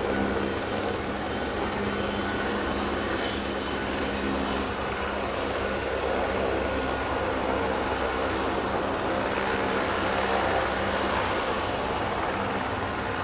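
Aérospatiale AS350B Écureuil helicopter's turboshaft engine and main rotor running steadily, a constant turbine whine and rotor noise, as it hovers low and settles onto its landing spot.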